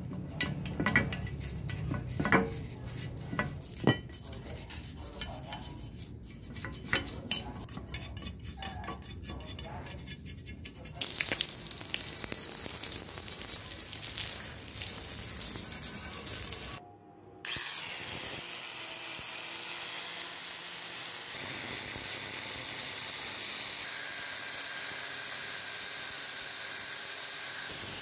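A toothbrush scrubbing a wet steel bicycle frame, scratching with sharp clicks as it knocks the tubes; about eleven seconds in it gives way to a jet of water hissing onto the frame. After a brief gap, a small power tool with a spinning wheel runs at a steady whine against a frame tube.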